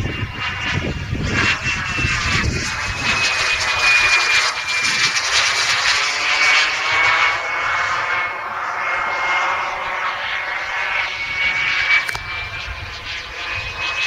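Wren 54 model gas turbine in flight, giving a steady high whine over a jet rush. The sound swells about four seconds in, then fades, and its pitch sags slightly before rising again near the end.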